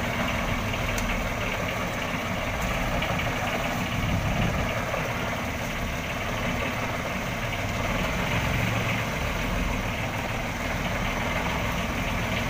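Outrigger fishing boat's engine running steadily at low speed.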